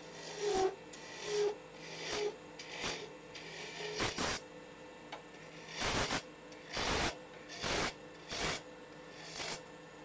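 Spindle roughing gouge cutting a spinning wood blank on a lathe. About eleven short scraping passes come roughly one a second, over the lathe's faint steady hum.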